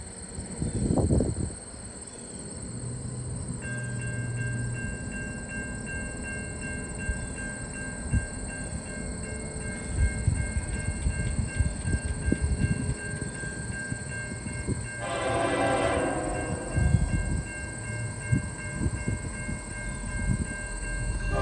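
Long double-stack freight train rolling past, its wheels and cars giving a continuous rumble with irregular clunks. A steady high-pitched tone sets in about four seconds in, and a diesel locomotive horn sounds briefly about fifteen seconds in.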